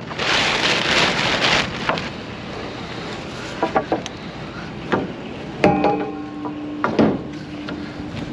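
Wooden 2x4 boards knocking against each other and the truck as a stack is shoved into place on a pickup: a handful of separate clunks, one a little past the middle setting off a metallic ring that hangs on. Wind rushes over the microphone at the start.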